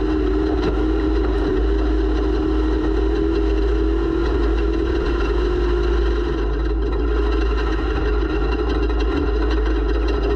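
Off-road race vehicle's engine running steadily under way, picked up by a camera mounted on the vehicle, over a constant heavy low rumble. The engine note wavers slightly and loosens a little about six seconds in.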